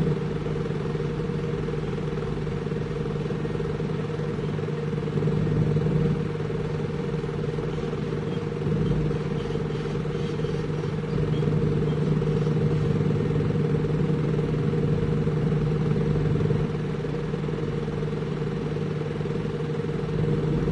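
Diesel engine of a piece of heavy construction equipment running steadily with a constant drone. It grows somewhat louder for a few seconds past the middle, then eases back.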